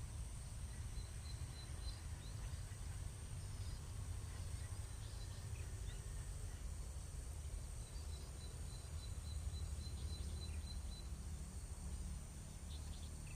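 Outdoor ambience of insects: a steady high-pitched insect chorus, with a rapid pulsed high trill about a second in and again for several seconds in the middle, and a few short bird-like chirps. A low steady rumble runs underneath.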